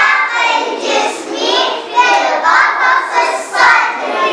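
A class of young children singing together in unison, a steady run of high young voices.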